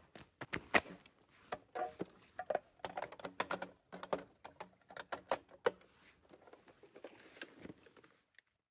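Footsteps on twigs and leaf litter, then a run of clicks and knocks as a hard plastic object is handled and lifted off the ground. The knocks thin out and grow quieter about six seconds in.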